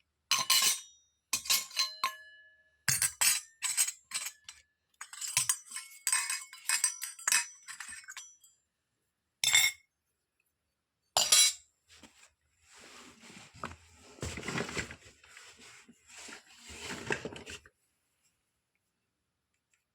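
Small miniature toy kitchen pieces clinking and clattering against each other as they are handled and set down, some clinks ringing briefly. After that comes about five seconds of softer continuous rustling.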